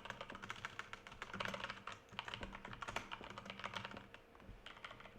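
Rapid typing on a computer keyboard, a quick run of key clicks with a brief pause near the end.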